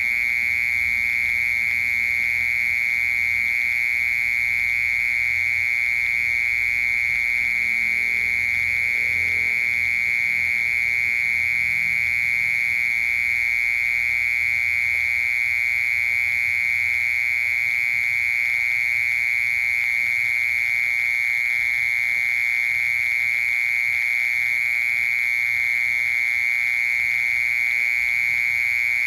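A cricket singing one continuous, steady high-pitched trill without a break.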